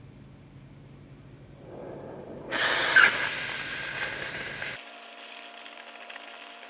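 Oxy-fuel cutting torch cutting steel pipe: a faint flame hiss builds, then about two and a half seconds in the cutting oxygen jet cuts in with a loud steady hiss and a sharp pop.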